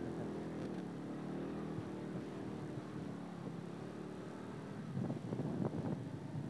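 Motorcycle engine running steadily at low revs, its hum fading out about halfway through. A few rough knocks and scuffs follow near the end.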